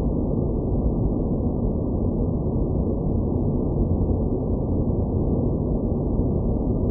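Steady, dull low rumbling noise with no high end and no changes: a synthesized space ambience drone.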